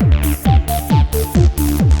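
Electronic dance music: a kick drum about twice a second, with off-beat hi-hat hits and a short stepping synth melody.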